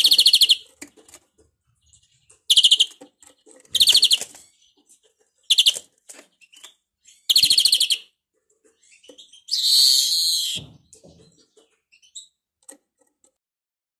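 European greenfinch singing: five short, fast buzzy trills, then one longer harsh wheeze about ten seconds in. The song is one its keeper rates as faulty.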